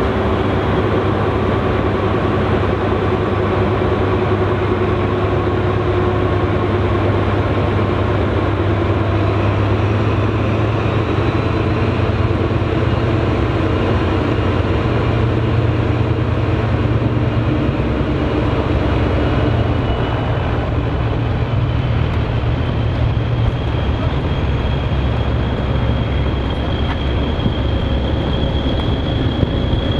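Diesel train running slowly through a station, a steady low engine note under the rumble of coaches rolling past. A thin high squeal rises near the end.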